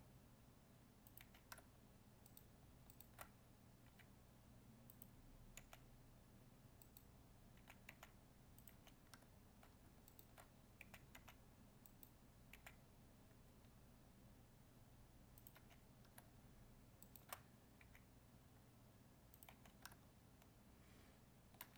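Near silence broken by faint, scattered clicks of a computer mouse and keyboard, over a low steady hum.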